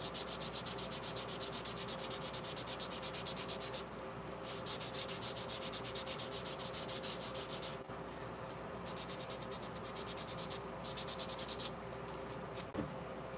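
A small piece of sandpaper rubbed quickly back and forth along the edges of glued paper cutouts, in four runs of rapid strokes with short pauses between them.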